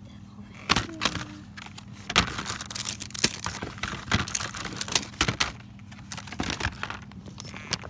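Blister-packed keychains clicking and rattling as they are handled on a store peg hook, in irregular clusters of sharp clicks.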